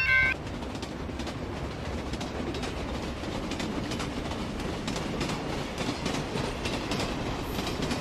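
A freight train passing: a steady rumble with a rapid clatter of wheels over the rail joints. The tail of a chiming jingle cuts off just after the start.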